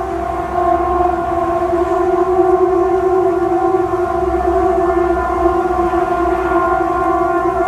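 A loud, steady horn-like drone, one held pitch with several overtones, that swells up over the first second and then holds: one of the unexplained 'strange sounds', likened to trumpets in the sky.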